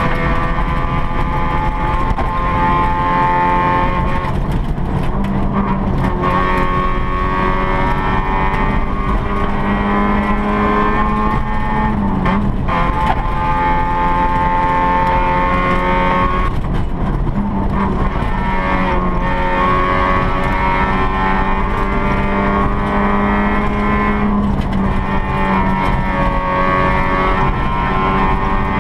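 Rally car engine heard from inside the cabin, driven hard at high revs, its pitch climbing and then dropping at each of several gear changes, over steady gravel road noise.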